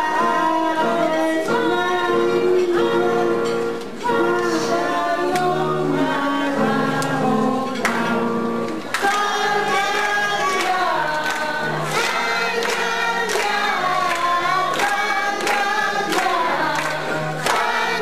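Girls' voices singing a song together through a microphone and PA, over instrumental accompaniment with a steady beat.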